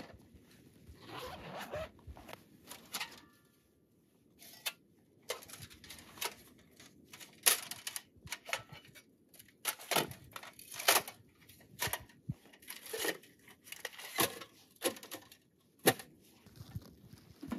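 Irregular rustling, clicks and sharp knocks of camping gear being handled: a zippered case being opened and the thin titanium panels of a folding tent stove being taken out and handled.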